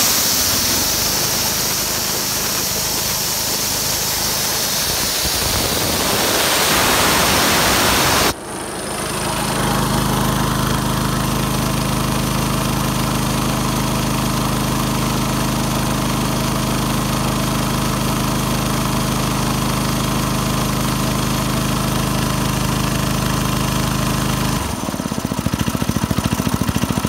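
Compressed air hissing out of the tank of a gas-engine air compressor, growing louder, then cutting off sharply about eight seconds in. The Craftsman 5 HP single-cylinder engine then comes up to speed and runs steadily, driving the pump as it kicks back in on falling pressure. Near the end the steady note gives way to a faster pulsing chug.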